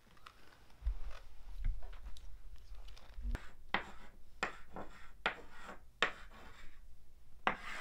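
Chalk writing on a chalkboard: a run of short scratchy strokes as a word is written out letter by letter. It follows a low rumble of movement in the first few seconds.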